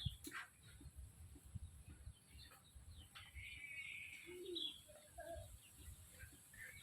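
Faint calls of chickens, with a warbling call about three seconds in and a few short clucks and chirps, over soft low thuds.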